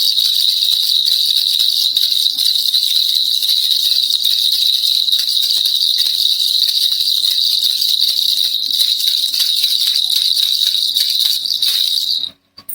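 Baby rattle (kilukilupai) shaken continuously and fast, a dense, high jingling rattle that stops suddenly near the end.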